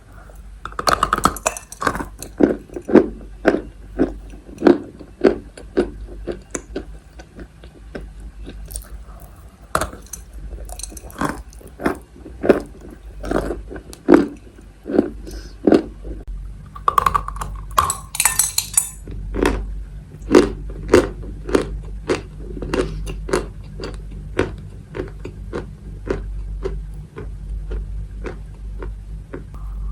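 Close-up crunching of Maria chalk being bitten and chewed: a steady run of crisp, gritty crunches, somewhat more than one a second. Sharper, louder crunches of fresh bites come about a second in and again just past the midpoint.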